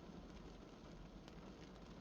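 Light spring rain falling on a car, heard from inside the cabin: a faint, steady hiss with scattered soft drop ticks.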